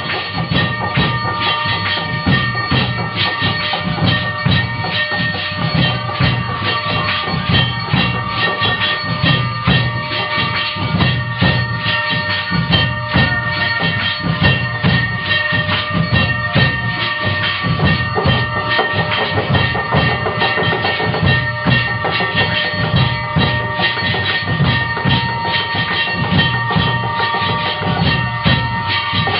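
Temple aarti music: fast, steady drumming with continuous ringing of bells.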